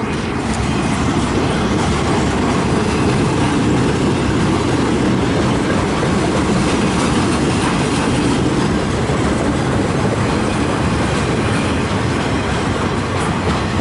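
CN freight train of empty centerbeam flatcars rolling past at close range: a steady, loud rumble of steel wheels on the rails.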